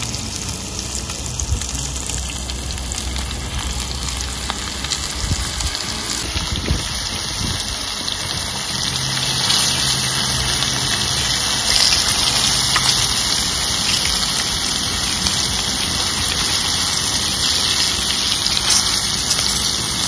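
Floured armored catfish pieces frying in oil in a metal pan: a steady, loud sizzle with scattered pops, growing louder about halfway through.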